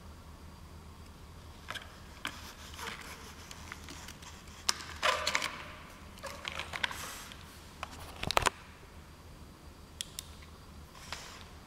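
Irregular clicks, taps and rustles of hands handling a small plastic toy car chassis, over a steady low hum; the loudest is a quick cluster of sharp clicks a little past the middle.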